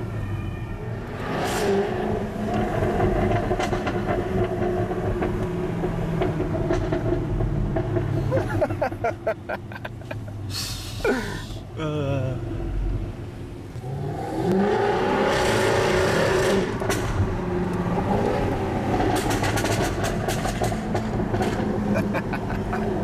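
Jaguar F-Type R Coupe's supercharged V8 on its stock exhaust, heard from inside the cabin, accelerating and revving up and down. Bursts of rapid crackles and bangs from the exhaust come on the overrun about a third of the way in and again near the end.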